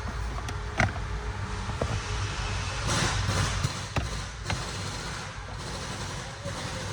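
Hard plastic dashboard trim being worked loose and handled: a few sharp clicks and knocks as the black footwell air-duct panel and its clips come away, with a brief scraping rustle about three seconds in, over a low steady hum.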